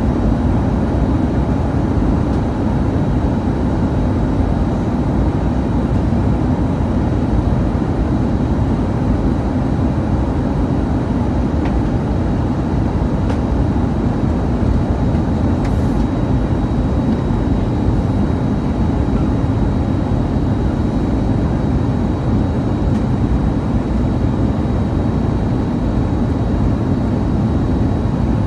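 Steady cabin noise inside a jet airliner on approach: an even low rumble of airflow and engines, with a faint steady high tone above it.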